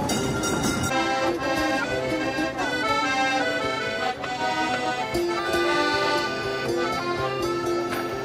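Background music: a melody of held notes moving from pitch to pitch over a steady accompaniment.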